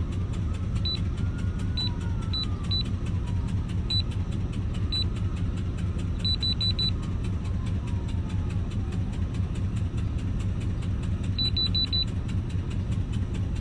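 4.8 LS V8 engine idling steadily with a fast, even ticking, which the owner takes for an exhaust leak at the headers. Short high beeps come in small clusters several times.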